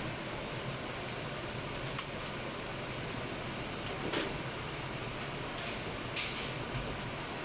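A few short plastic clicks, a knock and rustling scrapes as a child booster seat is handled and stood upright, over a steady background hum like air conditioning.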